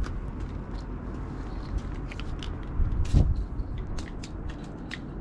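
Irregular sharp clicks and crackles over a low rumble, with a louder thump about three seconds in.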